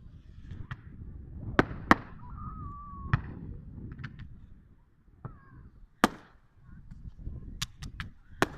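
Firework display going off in the distance: a string of sharp bangs and cracks, about eight in all, with a low rumble between them.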